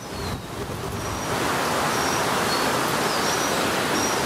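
Outdoor ambient sound on a windy day: a steady rush of wind noise that grows louder about a second in and then holds, with a few faint, short, high chirps over it.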